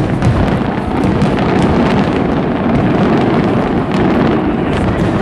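Fireworks bursting in a dense, continuous run of deep booms and sharp crackles.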